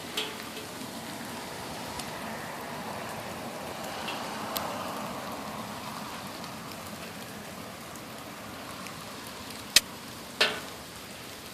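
Steady rain falling, an even hiss, with a few sharp taps from drops landing close by, two louder ones near the end.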